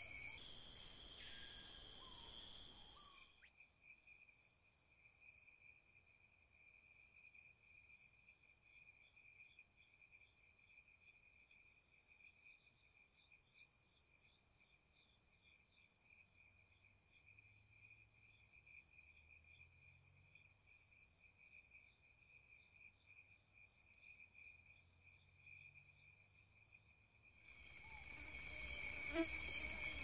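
A dense, steady chorus of night insects trilling, with a short, very high chirp repeating about every three seconds. The chorus sets in about three seconds in and gives way to a different insect texture near the end.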